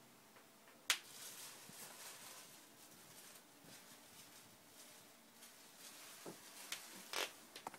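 Small metal jingle bell on a wooden toy walker's collar jingling in a few light clinks: one about a second in, then several close together near the end.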